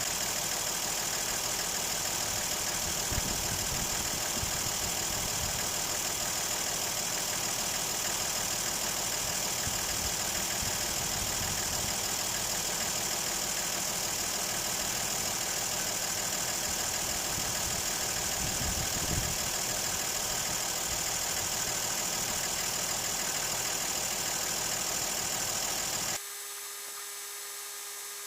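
Toyota Land Cruiser 60's engine idling steadily under a strong, even high-pitched hiss. Near the end it cuts off suddenly to a much quieter background with a faint steady hum.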